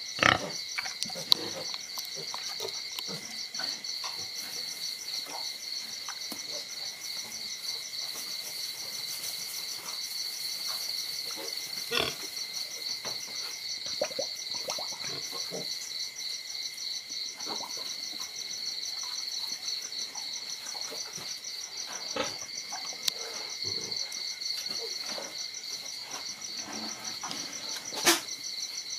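Steady high-pitched trilling chorus of night insects, crickets by its sound, with scattered soft scuffles and a few sharp clicks from puppies playing with a kitten on concrete.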